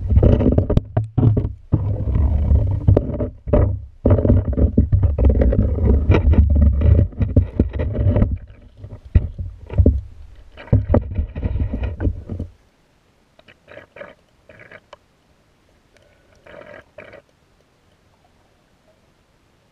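Muffled low rumble with many knocks from an underwater camera's waterproof housing being moved and jostled in the river; it stops abruptly about twelve seconds in, leaving only a few faint brief rustles.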